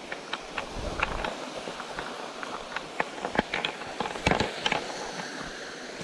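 Footsteps crunching on loose gravel and stone steps, going downhill at a walking pace, with a louder cluster of steps about four seconds in, over the steady rush of a waterfall.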